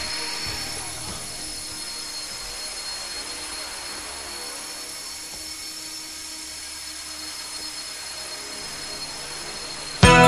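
Mini Titan E325 electric RC helicopter hovering, its brushless motor and rotor giving a steady high whine. Loud music cuts in suddenly near the end.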